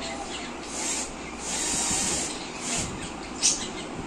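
A cat rummaging behind a pillar in a package of dry cat food: irregular rustling and scraping, with a short, sharp, louder rattle near the end. The owner takes it that the cat has spilled the Kitekat.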